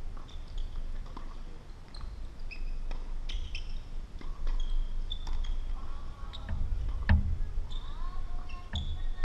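Tennis play: a few sharp ball strikes and bounces, the loudest about seven seconds in, among short high squeaks and chirps.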